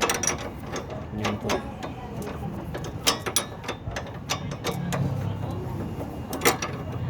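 Ratchet wrench clicking in short, irregular runs as it loosens the nut on a stabilizer link, the link's stud held still with an allen wrench.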